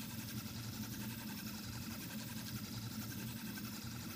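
Stepper motors of a Reach 3D printer driving the print head around a cylinder at about 200 mm/s, a steady mechanical hum. Acceleration and deceleration limits hold the head at this top speed, so the motors' pitch stays unchanged while the feed rate setting is lowered.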